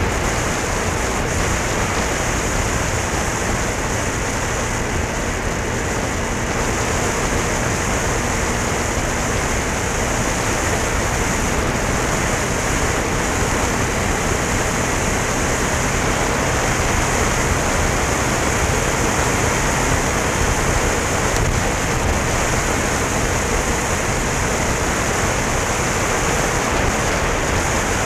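Steady wind rush over a Contour Roam3 action camera's microphone on a moving motorcycle at road speed, with a low, even engine hum underneath.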